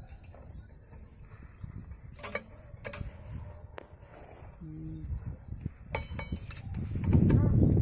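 A few sharp metallic clicks and clinks of a spanner on the nuts of a small diesel engine's tappet box, the last ones ringing, over a steady high chirr of crickets. A louder low rumble comes in near the end.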